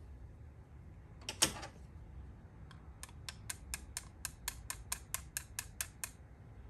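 A brief scrape, then a run of about fifteen small, even mechanical clicks, roughly four or five a second, from a small part being worked by hand on a motorcycle carburetor.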